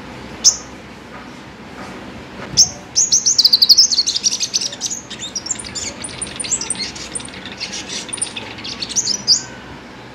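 Sunbird singing: a single sharp high note about half a second in, then from about two and a half seconds a fast, high twittering warble of rapid trills lasting some six seconds, ending on a sharp note.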